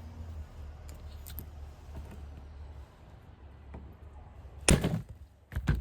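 Two sharp hammer blows on a hand impact screwdriver near the end, about a second apart, struck to break loose rusted screws on the air intake valve; a few faint tool clicks come before them.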